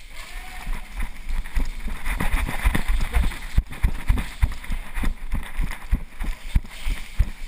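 Running footsteps on a concrete floor, heard as a string of short low thumps about three times a second.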